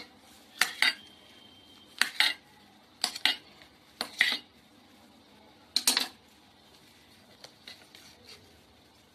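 A kitchen knife clinking against a steel bowl as red bananas are sliced into it. The sharp metallic clinks come about once a second, some of them doubled, and fainter clinks follow near the end.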